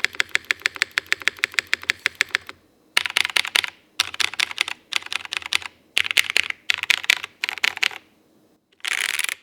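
Custom CCRX tenkeyless mechanical keyboard with tactile Cherry MX Falcon switches, a PC plate and GMK keycaps being typed on. First a steady run of evenly spaced keystrokes, about ten a second, for two and a half seconds; then five short fast bursts of typing with brief pauses between them, and a last quick dense flurry that stops just before the end.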